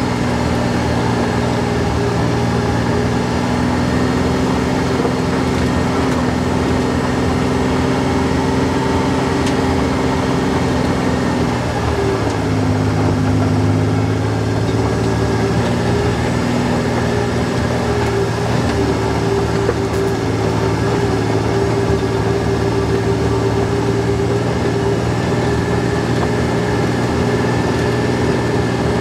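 Kawasaki Mule Pro-FXT side-by-side's three-cylinder engine running steadily under way on a dirt trail, heard from on board. Its note drops and grows fuller about twelve seconds in and shifts again around eighteen seconds.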